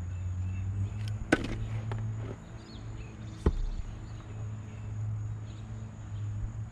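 Two sharp wooden knocks about two seconds apart, the first ringing briefly, from maple firewood being split by hand with an axe, over a steady low hum.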